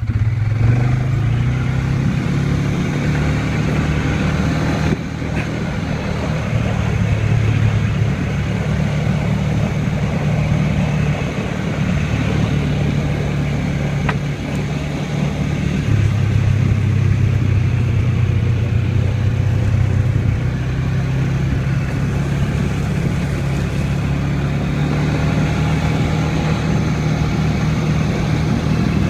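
ATV engine running while riding a trail, its pitch stepping up and down with the throttle.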